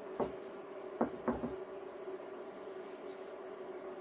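Wooden rolling pin knocking lightly against a silicone pastry mat as dough is rolled out, three short knocks in the first second and a half. Under it a steady hum from the portable induction burner heating a skillet of oil.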